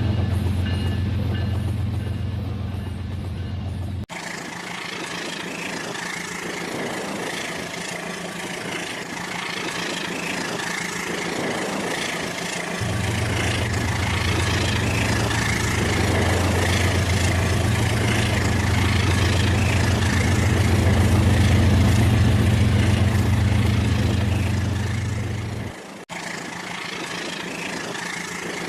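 Rail King remote-control toy train running: a steady motor hum and mechanical whirr. The low hum drops away about four seconds in, returns about halfway through, and the sound cuts off abruptly near the end.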